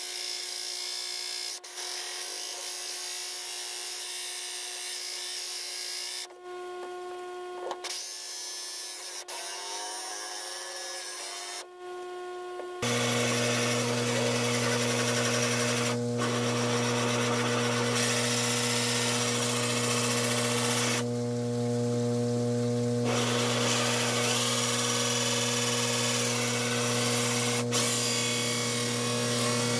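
Ryobi cordless drill spinning a hole saw in reverse, grinding its way through a fiberglass tank wall with a steady whine that briefly changes twice. About thirteen seconds in the sound turns louder and lower, a steady hum that runs on.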